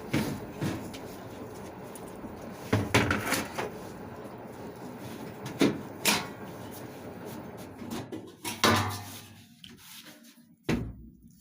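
Several sharp knocks and clunks from a front-loading washing machine being handled by its drum and door, over a steady background noise.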